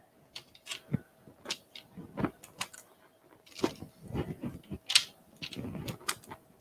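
Cookie scoop scraping chocolate chip cookie dough out of a mixing bowl, with scattered clicks and soft knocks as the scoop is worked and the dough balls are set down on a parchment-lined sheet pan.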